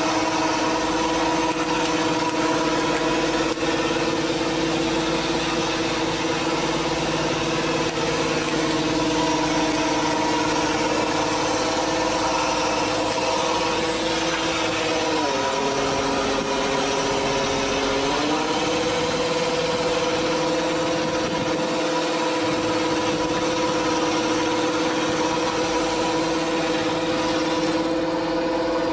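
A fishing boat's motor running steadily with an even hum. About halfway through its pitch drops, stays lower for a few seconds, then rises back up.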